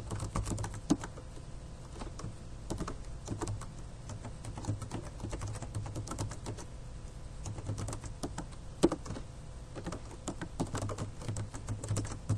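Computer keyboard being typed on: a run of irregularly spaced key clicks as a command is entered, over a low steady hum.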